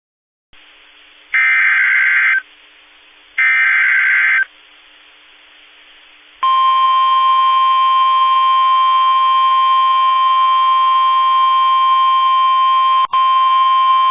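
Emergency Alert System header: two harsh, screeching SAME digital data bursts, each about a second long and a second apart. About six seconds in, the steady NOAA Weather Radio 1050 Hz warning alarm tone starts and holds, with one momentary break near the end.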